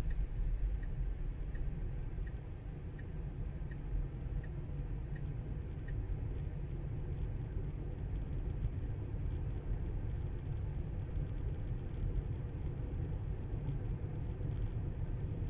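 Tyre and road rumble heard inside the cabin of a Tesla electric car on the move, steady and low. A turn signal ticks about once every three-quarters of a second, then stops about six seconds in.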